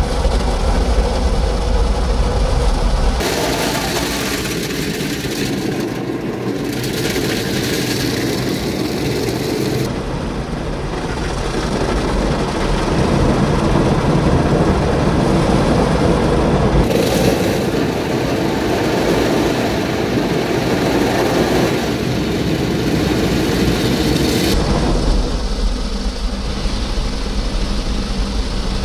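Automatic car wash machinery working around the car, heard from inside the cabin: a loud, continuous mechanical whir and rush that changes in character several times, about every seven seconds.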